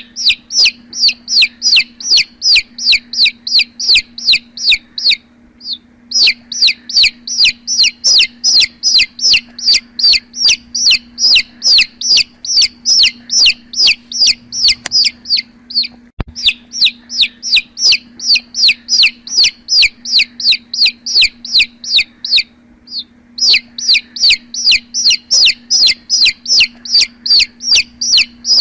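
Domestic chicks peeping: a rapid, regular run of short, high, falling peeps, about three to four a second, broken by two brief pauses. A faint steady low hum runs underneath.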